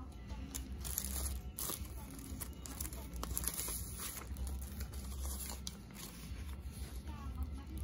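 Paper and plastic crinkling and rustling in irregular bursts as paper documents and receipts are slid out of a plastic sleeve and unfolded by hand.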